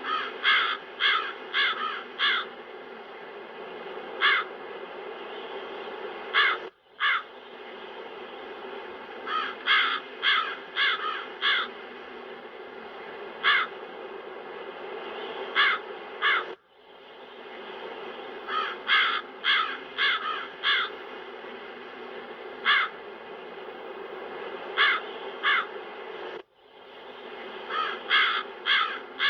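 Crows cawing in runs of three to five harsh caws, with single caws between, over a steady wind sound effect. The whole sound cuts out for an instant about every ten seconds and then comes back.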